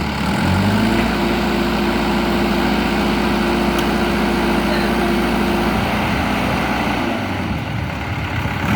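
Kirloskar diesel engine of a 2008 JCB 3DX backhoe loader revving up within the first second, holding high and steady for about five seconds, then dropping back toward idle.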